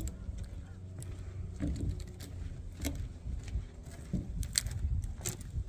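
Wind rumbling on a phone microphone outdoors, with scattered light clicks and knocks.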